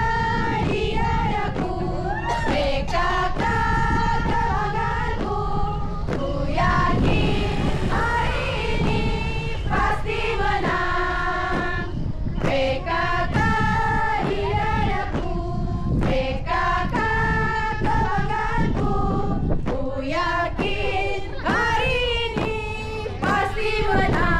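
A group of women singing a marching song together in unison, in held, evenly paced notes, over a steady low rumble.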